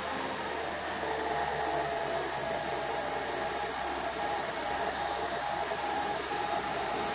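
Lexus RX350's 3.5-litre 2GR-FE V6 idling steadily with a broad whirring hum. The engine is being run with a coolant funnel on the radiator neck to purge air pockets from the freshly refilled cooling system.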